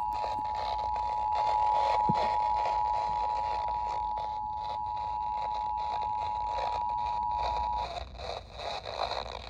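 Emergency Alert System attention signal: the steady two-tone 853 Hz and 960 Hz alert tone, heard over a radio for about eight seconds and cutting off sharply, over a constant hiss of static.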